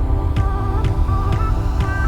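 Electronic dance music with a steady beat of about two strikes a second and a wavering synth melody over a heavy bass.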